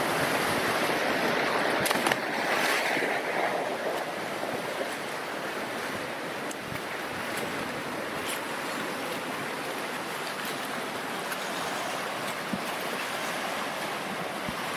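Fast river rapids rushing, a steady hiss of churning whitewater, a little louder over the first few seconds.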